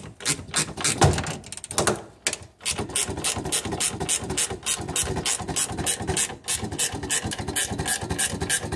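Socket ratchet wrench clicking as it runs the adjuster nut down a parking brake shaft: a few irregular clicks and knocks at first, then rapid, even ratcheting from about three seconds in.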